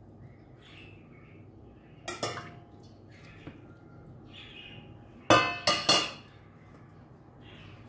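Kitchenware clinking: a light knock about two seconds in, then three sharp clinks of dishes or utensils in quick succession a little past halfway, with faint bird chirps in between.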